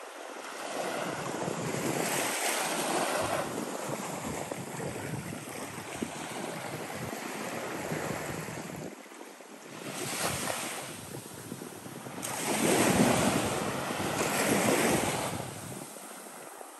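Small waves breaking and washing up a sandy beach, rising and falling in several swells, the loudest a little past two-thirds of the way through.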